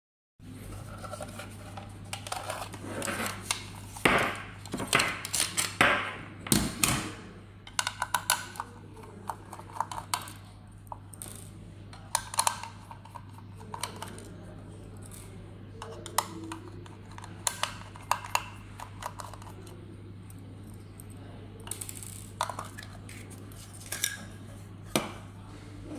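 Plastic dome security camera being taken apart with a small screwdriver: scattered clicks, knocks and rattles of the plastic housing and metal tool, busiest in the first several seconds, with short runs of quick ticks. A steady low hum runs underneath.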